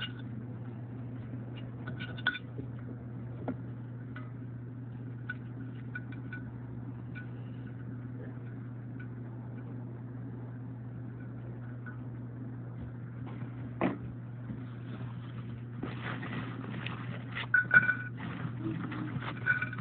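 Light clicks and taps of a knife and hands working a chicken sandwich on a plate, over a steady low hum. Near the end the handling gets busier, with a run of clatter and a couple of sharp knocks.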